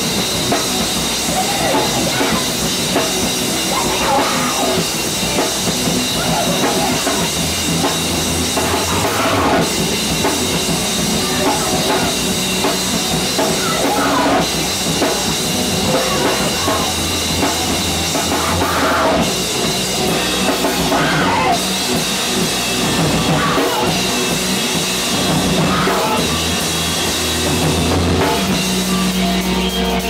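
Live rock band playing loud: electric guitars and a drum kit, with a singer at the microphone.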